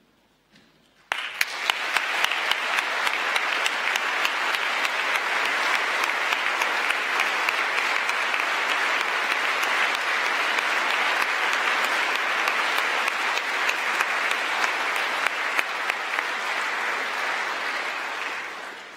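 A large hall audience applauding. The clapping starts suddenly about a second in, holds steady, and tapers off near the end.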